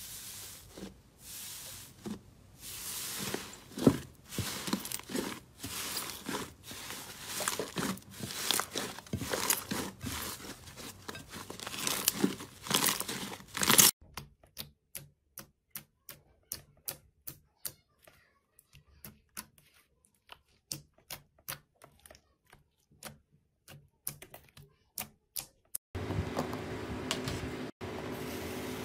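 Hands squishing and pressing thick blue slime, a dense crackling squelch; then a finger poking glossy pink slime, with sharp pops about twice a second. Near the end a steady rustle as a hand strokes coarse, fibrous red slime.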